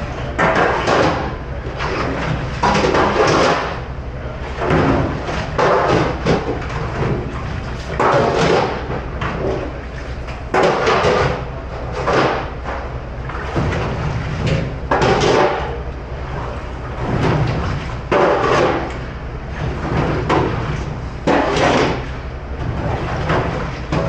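Pot-washing at a stainless steel sink: repeated bursts of water spray and metal pans clanking every second or two, over a steady low machine hum.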